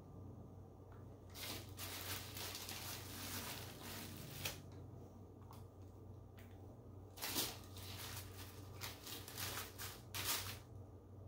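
Deli paper rustling and crinkling in irregular bursts as sliced cheese is peeled off the stack and laid onto a pizza, with a low steady hum underneath.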